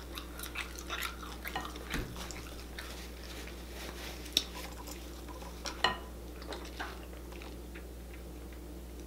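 Quiet tabletop handling sounds: scattered small clicks and taps, a dull knock about two seconds in as a large plastic water jug is set down, and two sharper clicks around four and six seconds in. A steady low electrical hum runs underneath.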